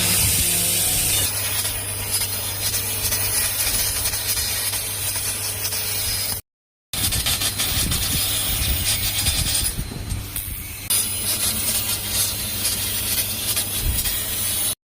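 6000 W CNC fiber laser cutter running: a steady hiss over a low, even hum. It drops out briefly about six and a half seconds in, then carries on.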